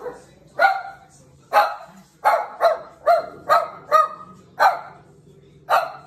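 Cavalier King Charles Spaniel barking in alarm: about nine sharp barks at uneven intervals, set off by its owner dressed up in a dog costume.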